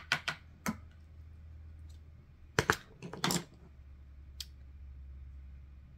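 A handful of light clicks and taps from the spiral-bound paper journal being handled and shifted on a tabletop, with a louder pair a little past halfway. A low steady hum runs underneath.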